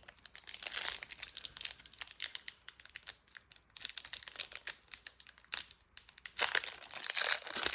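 Foil booster pack wrapper crinkling and rustling as it is handled, with a louder, denser stretch of rustling near the end as the pack is torn open.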